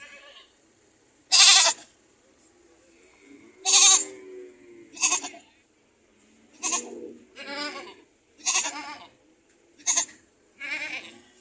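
Goats bleating: about eight loud calls, each under a second long, following one another with short gaps.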